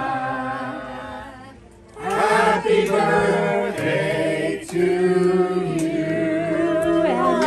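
A group of voices singing long held notes together with no clear words, in several pitches at once. The singing fades out about a second and a half in and comes back louder at about two seconds.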